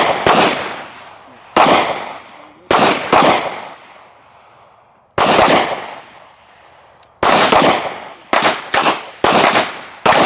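Semi-automatic pistol fired one shot at a time, about a dozen sharp shots in all, each with a short echo. The first few come a second or more apart, then they come faster, often in pairs, near the end.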